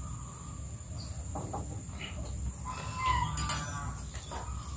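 Chickens clucking, a short run of pitched calls about three seconds in, over a faint steady low hum.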